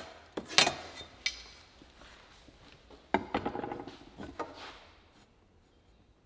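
A steel framing square knocked, set down and slid on a pine board, with a pencil scribing a line along its edge. A few sharp knocks come in the first second and a half, and a longer scraping rattle of metal on wood about three seconds in.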